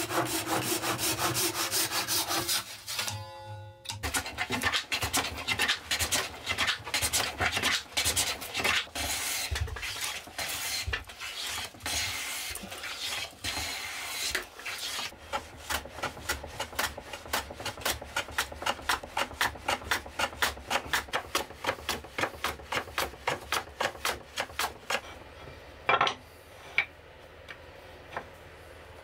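Hand tools working cherry wood: a handsaw cutting in quick strokes for the first couple of seconds, then, after a short break, a long run of hand-plane strokes shaving the board. The strokes settle into an even two or three a second before stopping, followed by a single sharp knock.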